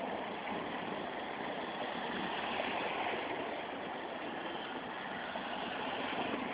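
Bicycle tyres running through shallow floodwater on a road, a steady rushing and swishing of water.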